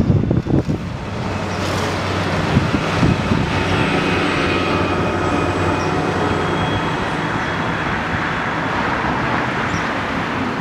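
Wind gusting on the microphone for about the first second, then a steady rumble of road traffic with a faint hum.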